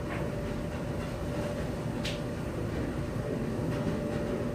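Steady mechanical drone of running laundry machines with a constant hum, and a brief faint hiss about two seconds in.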